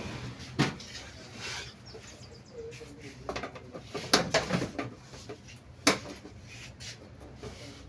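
Handling noise of hand tools and fittings with a few sharp clicks and knocks, loudest about half a second in, around four seconds and near six seconds, as pliers fasten a connection on a fire alarm panel.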